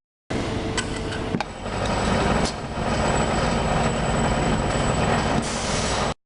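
Automatic assembly machine for transport safety parts running with a steady mechanical noise and a thin high whine, with a few sharp clicks about a second in. The whine stops shortly before the sound cuts off.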